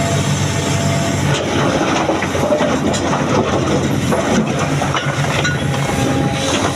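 Heavy diesel earthmoving machinery running, an excavator working beside a dump truck: a steady engine hum, broken in the middle by a rougher stretch of clatter and knocks.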